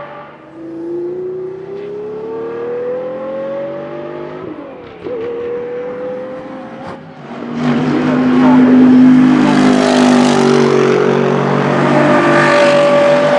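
A Montecarlo BRC GT race car's 6-litre Audi W12 engine, running on LPG, accelerating hard at full throttle, its pitch climbing, with a gear change about four and a half seconds in followed by another climb. From about seven and a half seconds it is much louder as the car passes close by at speed: the pitch falls as it goes past, then climbs again near the end.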